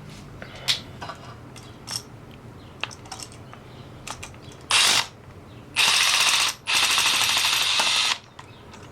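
Small clicks of tools and parts, then three loud bursts of rapid mechanical ratcheting, a short one about halfway and two longer ones after it, from a tool used on the receptacle's wiring.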